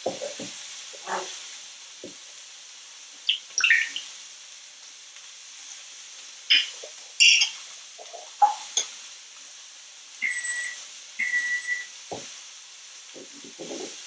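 African grey parrot making scattered short whistles, chirps and clicks, among them a rising whistle about three and a half seconds in and two short, steady whistled notes about ten seconds in, over a steady background hiss.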